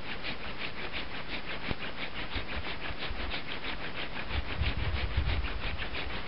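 Wooden hand-drill spindle twirled between the palms on a hearth board for a friction fire, rasping in a fast, even rhythm of roughly six strokes a second. Heavier low rubbing joins about four and a half seconds in as more pressure goes on.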